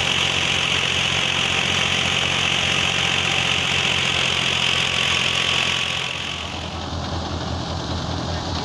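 Diesel tractor engine running steadily while it drives a wheat thresher, with a steady high whir over it. About six seconds in, the whir drops away and the engine's low, even chugging comes to the fore.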